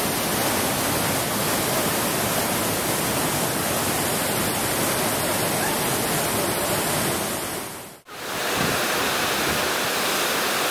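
Steady rush of white-water river rapids below a waterfall. The sound drops out for a moment about eight seconds in, then a similar steady rush of falling water resumes.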